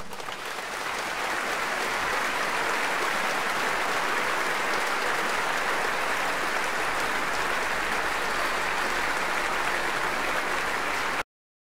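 Concert audience applauding, building over the first second and then holding steady, cut off abruptly near the end.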